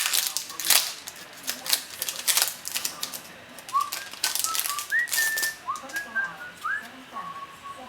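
Trading card packs and cards being handled and opened: a run of crackly clicks and rustles for the first few seconds, with more near the middle. From about halfway, a string of short high chirping notes that glide upward, two of them held a little longer.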